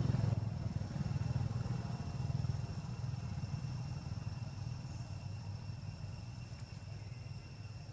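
Motorcycle engine running, a low pulsing rumble that slowly fades, with a faint steady insect drone above it.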